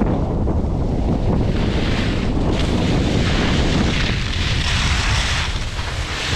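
Wind buffeting the microphone in a steady low rumble, with skis hissing over snow in a few swells from about a second and a half in.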